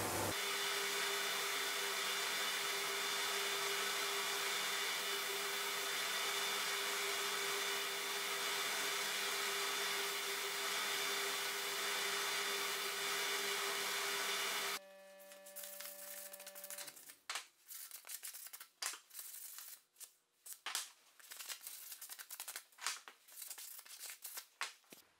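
Edge belt sander running with a small wooden part pressed against the moving belt: a steady sanding noise with a hum, which cuts off abruptly about fifteen seconds in. Then irregular short rubbing strokes of a sanding block worked by hand over a small wooden piece.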